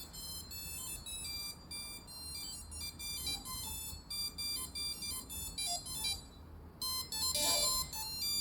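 An FPV quadcopter's brushless motors, driven by AM32 ESCs, beeping out a custom startup melody on power-up. It is a quick run of short electronic-sounding notes of changing pitch, with a brief pause about six seconds in before more notes follow.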